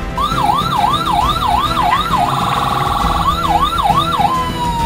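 Electronic emergency-vehicle siren: a series of quick rising whoops, switching to a fast warble for about a second in the middle, then three more whoops and a long, slowly falling tone near the end.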